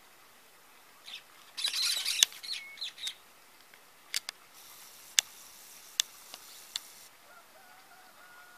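Cactus parakeets giving a short burst of harsh, scratchy screeches, loudest a couple of seconds in. Several sharp clicks follow over the next few seconds.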